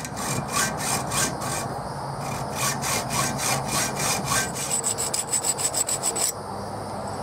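Hand hacksaw cutting through a metal tube clamped in a vise, in rhythmic back-and-forth strokes, about two or three a second and quicker near the middle. After about six seconds the strokes stop and a softer, steady rubbing follows.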